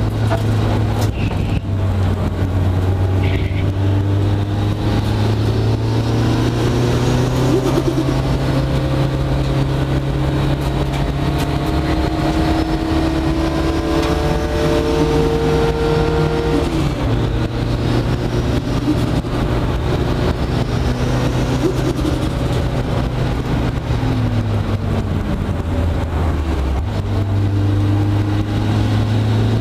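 Mitsubishi Lancer Evolution VIII race car's turbocharged four-cylinder engine, running 1.8 bar boost and heard from inside the cabin, pulling hard on track. The engine note climbs and then drops several times.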